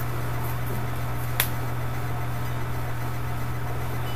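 Steady low electrical hum and hiss of a webcam recording's background noise, with one sharp click about one and a half seconds in.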